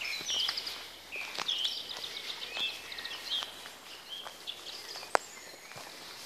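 Songbirds singing in quick, varied chirping phrases, busiest in the first few seconds, over footsteps on the forest floor. A single sharp click stands out about five seconds in.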